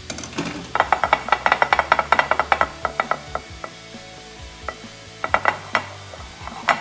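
A quick run of light clicks and knocks, then a few scattered ones: cooked cauliflower florets and fingers tapping against a ceramic baking dish as the florets are arranged.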